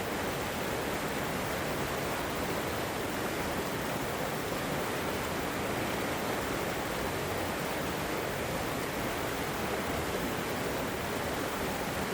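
River water flowing and rushing over rocks in a steady, even wash of noise.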